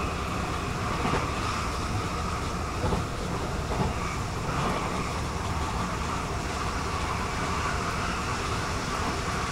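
Steady running noise inside a DB Class 422 electric multiple unit: the rumble of wheels on rail, with a few faint knocks in the first few seconds.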